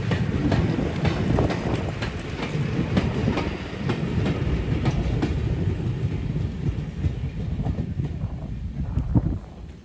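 Four-wheeled goods wagons and a brake van rolling past on jointed track, the wheels clicking over the rail joints about twice a second over a steady rumble. The sound fades as the tail of the train moves away near the end.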